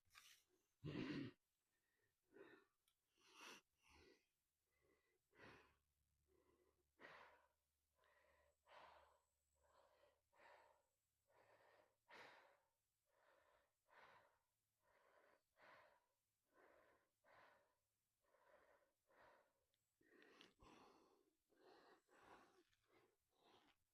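A person breathing hard and faint, in even puffs a little more than one a second.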